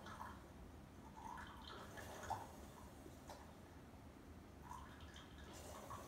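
Near silence: faint room tone with a few soft, scattered blips.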